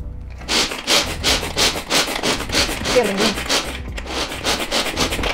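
Pull-cord mini food chopper chopping roasted peanuts: pulling the cord again and again spins the blades through the nuts in a fast string of short scraping strokes, about four a second, with a brief break a little before four seconds in.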